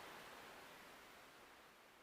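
Recorded ocean surf, a steady hiss of waves, fading out to near silence.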